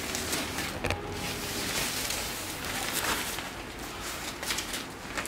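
Soft white protective wrap being pulled and slid off an iMac, rustling, with a few short handling knocks.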